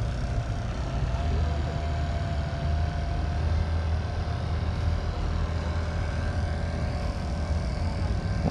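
Steady low engine rumble, with a faint thin whine over it during the first few seconds.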